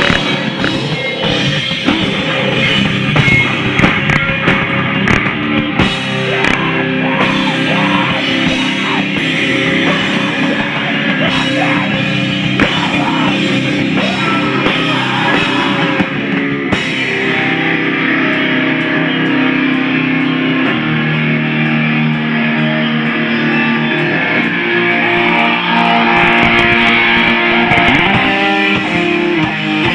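Live rock band playing loud: electric guitars and bass over a drum kit.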